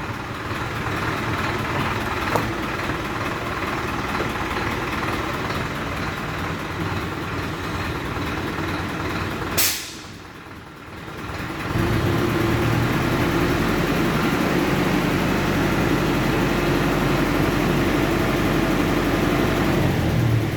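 A truck engine idles steadily. About ten seconds in there is a brief sharp noise and the sound drops for about two seconds, then the idle carries on with an even low hum.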